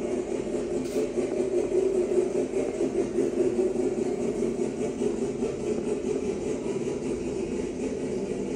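An engine running steadily, giving an even low drone.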